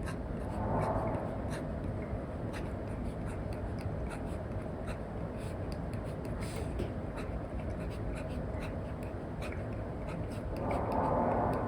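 Apple Pencil Pro's plastic tip scratching and tapping on an iPad screen covered with a paper-like matte film during sketching: quick strokes and light ticks over a steady background hiss, which swells louder briefly near the start and again near the end.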